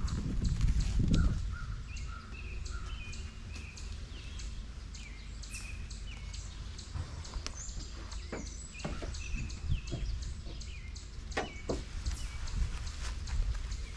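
Wind buffeting the microphone for about the first second, then small birds chirping over and over, with scattered crinkles and clicks of a plastic sheet being handled.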